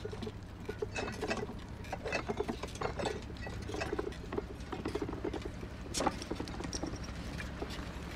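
A bicycle being ridden, rattling and clattering irregularly over a steady low hum, with a sharper knock about six seconds in and a few light clinks.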